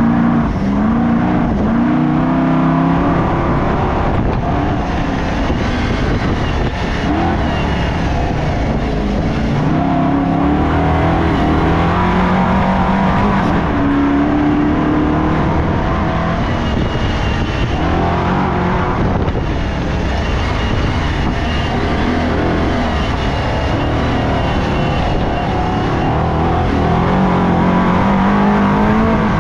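Off-road race car engine running hard, its pitch repeatedly climbing under acceleration and then dropping as the driver shifts or backs off.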